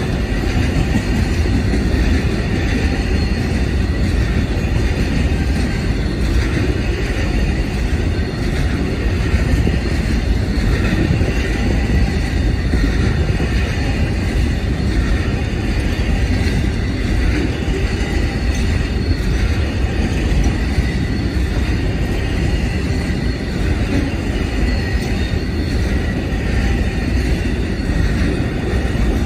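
Amtrak Auto Train bi-level autorack cars rolling steadily past on the rails, a continuous rumble of wheels on track with a faint steady high tone above it.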